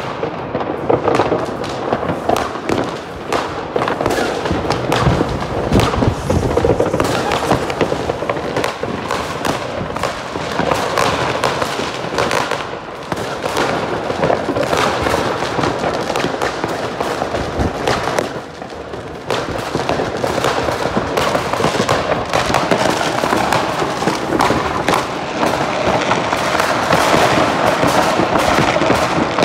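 Many fireworks and firecrackers going off at once, a dense, unbroken crackle of bangs and pops that dips briefly about two-thirds of the way through.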